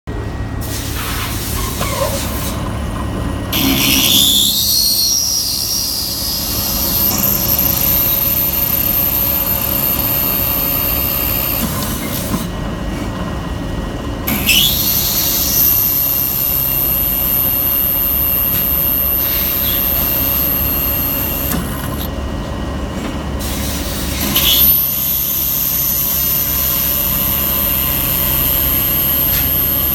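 CNC machine driving a DL200 diamond core drill through Dekton sintered stone, three holes in turn over a steady machine hum. Each hole starts with a rising whine, holds a high steady squeal for about seven seconds, then stops.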